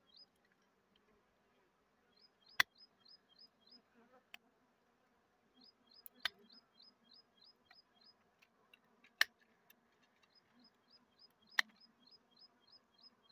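Wild honeybees buzzing faintly in a steady hum around an exposed honeycomb, with four sharp snips of hand shears cutting twigs around the comb. High chirps repeat in quick runs throughout.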